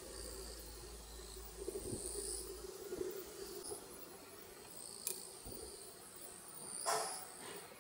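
Insects chirping in repeated high trills that come and go every second or two. A short, louder burst of noise cuts in near the end.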